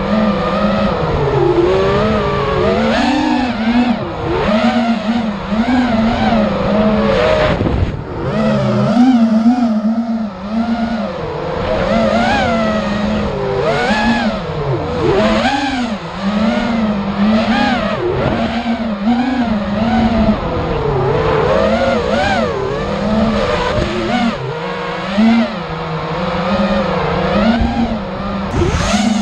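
Racing quadcopter's electric motors and propellers whining, the pitch constantly rising and falling with the throttle, with a brief drop about eight seconds in.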